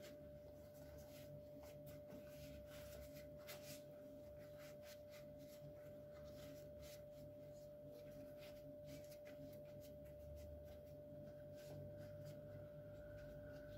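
Very faint rustling and crinkling of thin yufka pastry sheets being folded and pressed into a frying pan by hand, in scattered soft ticks, over a steady faint hum.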